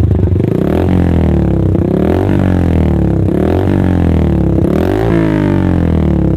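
Motorcycle engine running through an aftermarket LeoVince exhaust silencer, revved up and let back down several times during a sound test.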